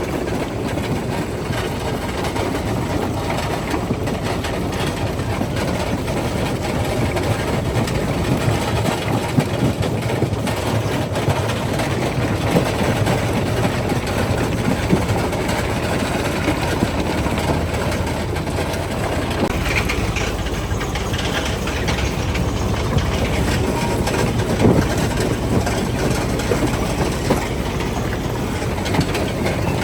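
Quarry primary jaw crusher running, a steady heavy rumble with a constant clatter of rock knocking and grinding as it is crushed.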